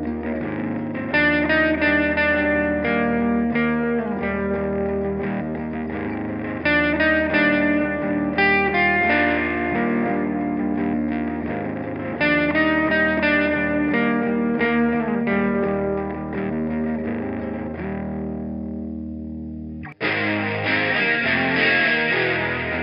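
Electric guitar through distortion effects pedals playing a heavy alt-rock riff: held chords ringing out with bursts of repeated picked notes. Near the end it breaks off briefly and a harsher, denser fuzz riff starts.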